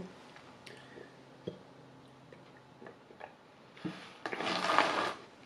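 A person drinking milk from a glass: faint swallows and small mouth clicks, then a louder breathy noise lasting under a second about four seconds in.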